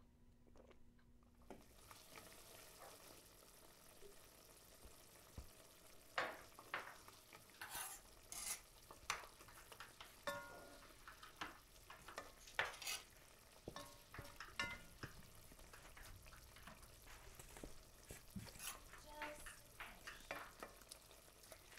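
Food sizzling in a pan, a steady hiss, with irregular clicks and scrapes of a utensil stirring through it from a few seconds in.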